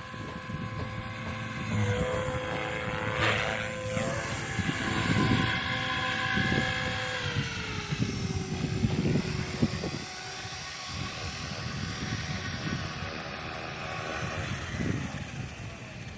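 A small propeller aircraft's motor droning with a steady whine that steps up in pitch about two seconds in and falls around the middle, as it flies in strong wind. Gusts of wind buffet the microphone throughout.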